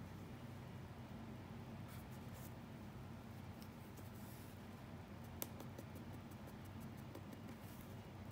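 Faint scratching strokes of a drawing tool on paper, coming in short bursts and then quickening into a run of rapid small strokes in the second half. There is a single sharp click about five seconds in, over a low steady hum.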